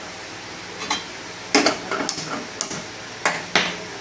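Iron wok and gas stove: six or so sharp, separate metallic clicks and knocks, spaced unevenly, as the wok is set on the burner grate and the burner is lit.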